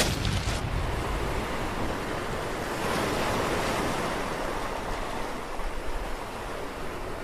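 Ocean surf washing on a shore, a steady rush that slowly fades. A few faint clicks die away right at the start.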